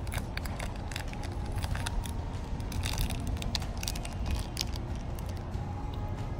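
Plastic snack-bar wrapper crinkling and tearing in the hands as it is opened and peeled back, in a series of short sharp crackles, over a steady low rumble.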